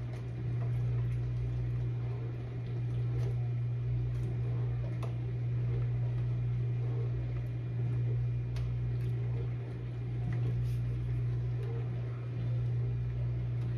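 Steady low hum of a kitchen vent fan, with scattered light clicks of a utensil stirring in a pot of candy-apple sugar syrup.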